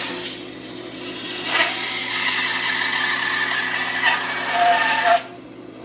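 Bandsaw cutting through a wooden block, a rasping cut over the machine's steady hum. The cutting noise stops abruptly about five seconds in as the blade comes through, leaving the saw running free.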